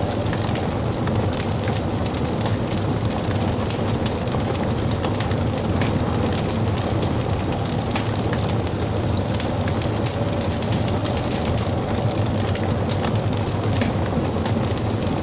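Wood fire burning, with frequent small crackles and pops over a steady low rumble of the flames.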